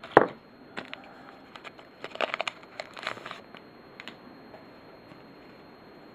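Wrapper of a 2007 Fleer Ultra baseball card pack crinkling as it is opened and the cards are pulled out, in short crackly strokes: a sharp one about a quarter second in and a cluster between two and three and a half seconds.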